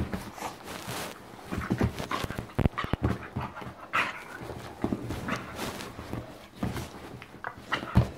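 Staffordshire bull terrier's play noises, panting and short irregular huffs, as it wrestles and mouths a hand. Scattered knocks and rubbing come from the scuffle.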